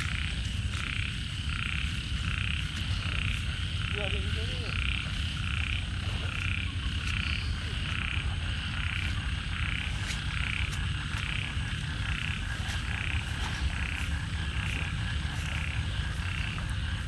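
A chorus of frogs calling at the water's edge at night, a steady run of repeated croaks about two or three a second, over a low rumble.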